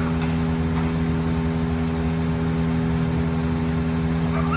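A steady, unchanging engine hum from tree-trimming machinery running at constant speed.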